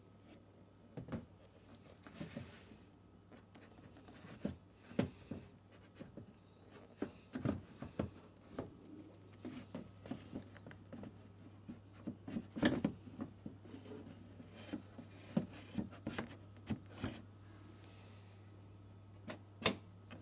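Plastic headlight assembly being worked into its opening in the car's wing: scattered light knocks, taps and scrapes of plastic against plastic and metal, one louder knock about twelve seconds in. A faint steady low hum runs underneath.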